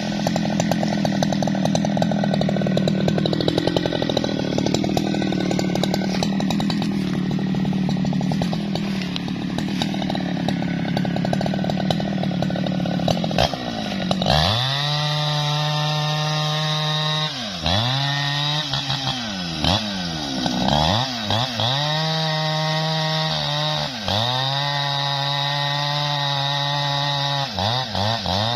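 Jonsered two-stroke chainsaw running loudly, its pitch wavering under load for the first half. After a short break about halfway it holds high revs while cutting through a felled trunk, dipping briefly in pitch several times and picking back up.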